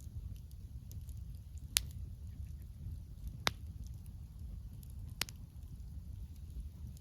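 Wood campfire crackling: three sharp pops about a second and a half apart and fainter small crackles, over a steady low rumble.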